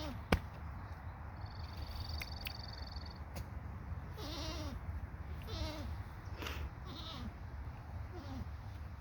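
Goats bleating: a short call at the start, then a run of about five short bleats roughly a second apart. A sharp click comes just after the first call, and a brief, steady, high-pitched buzz runs for about a second and a half early on.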